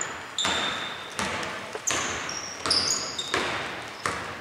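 A basketball being dribbled on an indoor court: a steady bounce about every three-quarters of a second, each one ringing in the hall, with short high sneaker squeaks on the floor between bounces.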